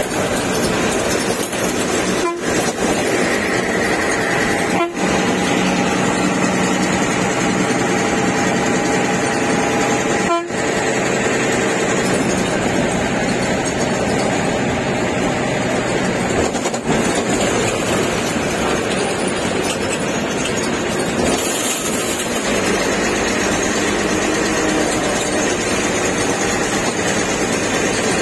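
Bus driving on the road, heard from the driver's cab: steady engine and road noise with the cab rattling, and a horn sounding briefly a few seconds in.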